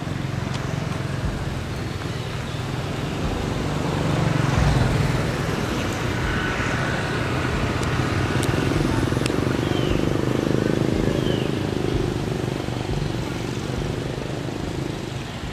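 Motor vehicle engine rumble, steady and low, swelling louder around the middle and easing off toward the end, with a few faint short chirps above it.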